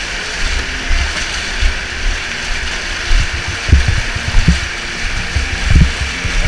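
Floodwater splashing and sloshing as several people wade through it, over a steady rush of water noise, with irregular low thumps on the microphone.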